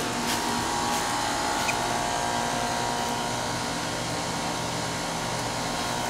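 2006 5-ton Tempstar heat pump outdoor unit running in cooling mode: a steady hum from its condenser fan and Copeland scroll compressor, with a few steady tones in it.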